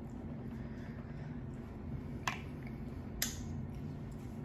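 Close-miked eating sounds: two sharp clicks about a second apart, from a plastic fork on a styrofoam takeout container or from the mouth, over a steady low hum.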